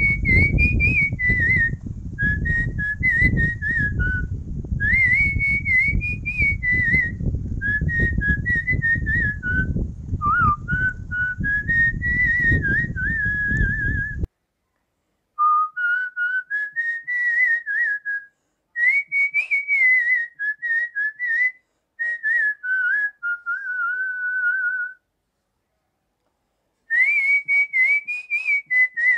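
A person whistling a tune as background music: a clear, high melodic line in phrases with short pauses between them. A low rumble sits beneath the whistling and cuts off suddenly about halfway through.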